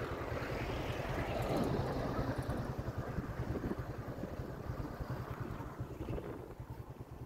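A moving vehicle's engine and road noise, heard from the vehicle itself, with wind buffeting the microphone in rapid low thumps. The noise eases off about six seconds in.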